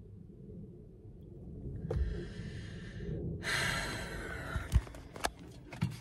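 A person taking two long, heavy breaths, the second louder, then knocks and rubbing from a phone being handled inside a car cabin, with one sharp knock a little before the end.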